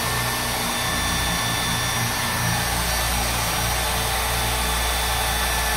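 Power drill running steadily under load as it bores a handle hole through a wooden jig into a kitchen cabinet door. The drill bit is worn blunt, 'absolutely knackered'.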